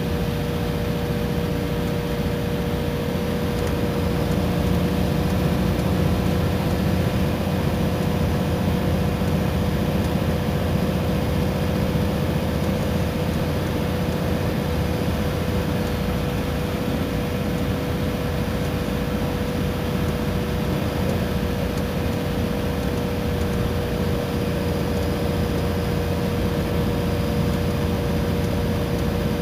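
Iveco Crossway Line bus under way at a steady pace: its engine runs with a low rumble, a constant whine and road hiss, with no gear changes or stops.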